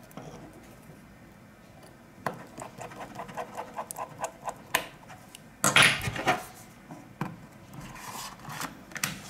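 Small handling noises of an LG G5 smartphone being worked on with a precision screwdriver: a quick run of light ticks a couple of seconds in, then a louder, brief clatter about six seconds in, with scattered taps after.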